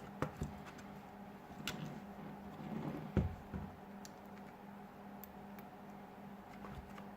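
Scattered small clicks and light taps of hand tools and plastic phone parts being handled, the sharpest near the start and about three seconds in, over a steady low hum.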